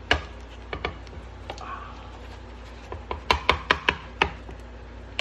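Kitchen utensil knocking and scraping against a cooking pan while cooked prawns are lifted out onto a plate: a few sharp knocks, a short scrape, then a quick run of about six clacks.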